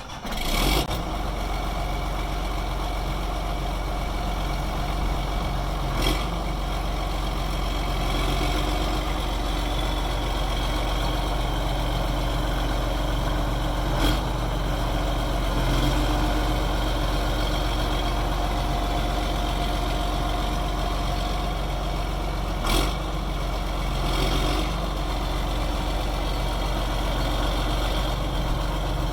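John Deere 8120 tractor's six-cylinder diesel engine catching in the first second and then idling steadily. Three short clicks sound through the idle.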